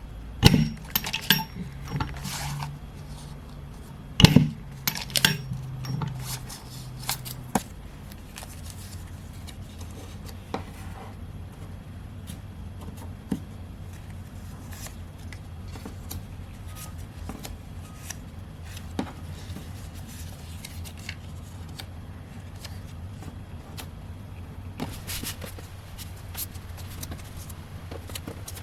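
Metal pin-back buttons clinking and tapping as they are handled and set out, with a cluster of sharp clicks in the first several seconds, a few scattered clicks after that and another group near the end, over a steady low hum.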